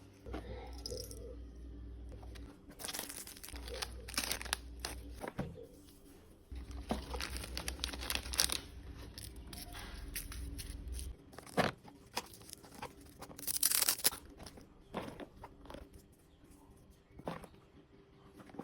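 Packaging being torn open and handled: irregular rips, crinkling and crunching, with a few louder tears. A low rumble runs underneath for the first two-thirds and then stops.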